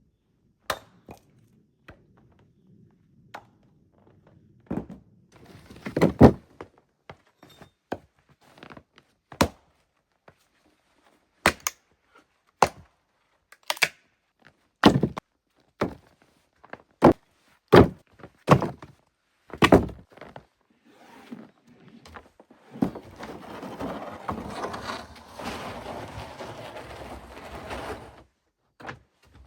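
A series of sharp, irregular thunks and knocks, about fifteen in all, the loudest about six seconds in. Near the end they give way to about five seconds of steady rustling or scraping.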